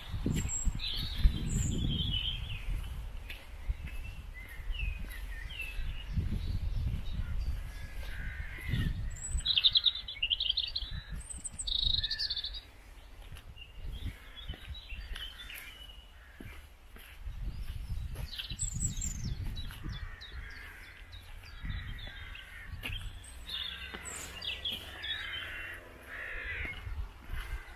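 Several birds singing and calling, short chirps and trills scattered throughout, over an uneven low rumble.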